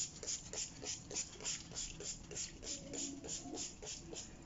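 Plastic trigger spray bottle pumped rapidly, a short hiss of mist with each squeeze, about three to four squeezes a second, stopping near the end.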